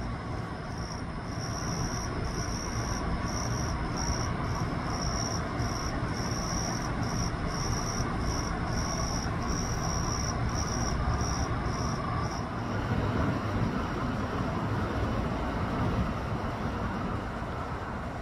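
Crickets chirping: a high, single-pitched chirp repeating about twice a second, stopping about two-thirds of the way through, over a steady low rumble.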